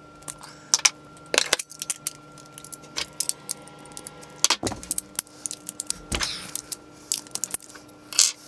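Metal hand tools and grease gun parts clinking and clattering on a workbench as they are handled, picked up and set down. The clicks are irregular, with a few louder knocks spread through.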